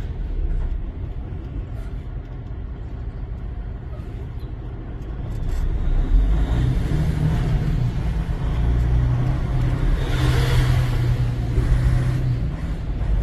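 Semi truck's diesel engine droning, heard from inside the cab while driving. It grows louder about six seconds in, with a brief rush of noise around ten seconds.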